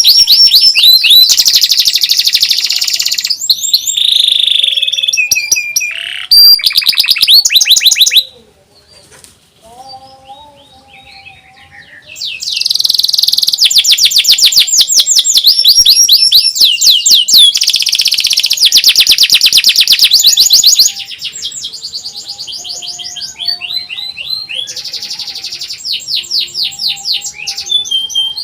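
Domestic canary singing in fast trills, long runs of rapidly repeated high notes. It drops to a few faint notes for about four seconds about a third of the way in, comes back loud, and goes softer for the last third.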